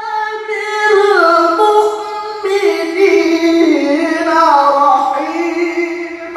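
A male qari reciting the Qur'an in melodic tilawah style, singing long, ornamented held notes in a high register, amplified through a microphone. The line slides down in pitch midway and climbs again toward the end.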